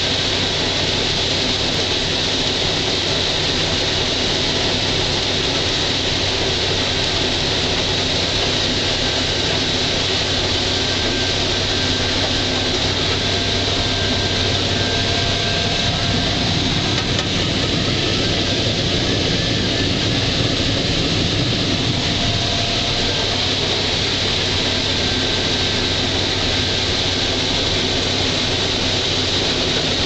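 International Harvester 1460 Axial-Flow combine running steadily while harvesting corn: engine, threshing rotor and corn head making a constant mechanical din with a low hum.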